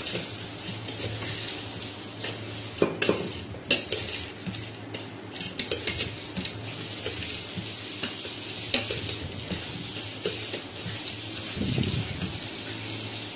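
A spoon stirring and scraping a dry puffed-rice bhel mixture in a steel bowl, with scattered sharp clinks of the spoon against the metal.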